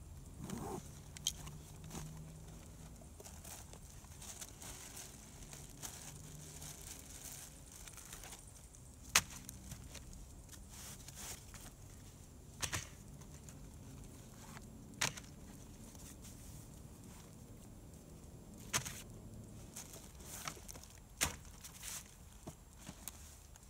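Gear being unpacked from a canvas rucksack onto a ground sheet: rustling of canvas and plastic packaging, with a few sharp clicks and knocks as items are set down.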